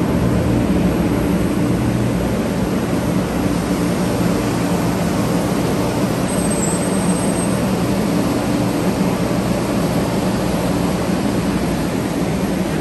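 A 500 series Shinkansen bullet train pulling into a station and slowing to a stop. A steady rushing rumble with a low motor hum eases slightly toward the end.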